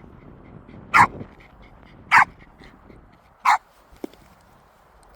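A small dog barking three times, single sharp high-pitched barks a little over a second apart.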